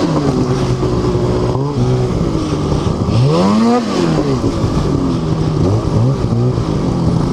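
Two-stroke snowmobile engine running under way, the throttle worked up and down: one big rev rising and falling about three to four seconds in, then several shorter blips.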